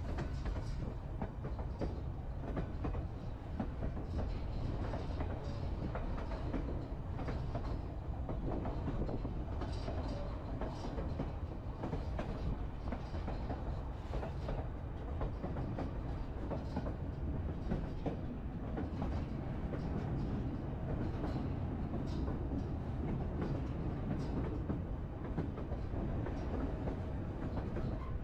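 Narrow-gauge White Pass and Yukon Route passenger train rolling along the track, heard from aboard: a steady low rumble of wheels on rail with irregular clicking and clatter.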